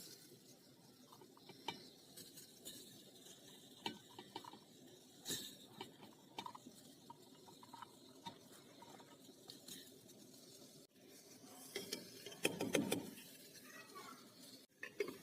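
Faint kitchen handling sounds: scattered light clicks and clinks of utensils and cookware, with a louder cluster of knocks about twelve seconds in.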